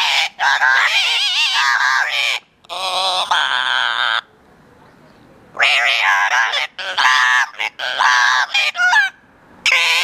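Yellow-naped Amazon parrots calling loudly in bursts of squawks with warbling tones. The calls pause for about a second and a half near the middle, then start again in a quicker run of short calls.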